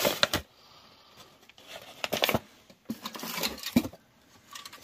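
Handling noise: short bouts of rustling with light clicks and knocks as old objects and their packaging are picked up and moved, with quiet gaps between, at the start, about two seconds in, and again just after three seconds.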